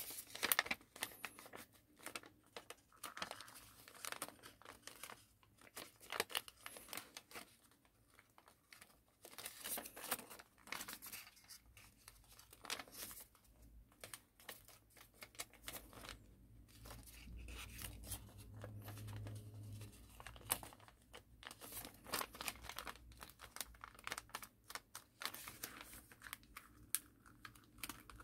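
Paper being folded and creased by hand: irregular crinkling, rustling and sharp crackles as the sheet is pressed into folds. A faint low hum sits under it for a few seconds in the middle.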